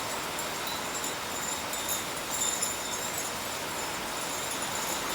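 Steady rain pouring down, an even hiss of falling water.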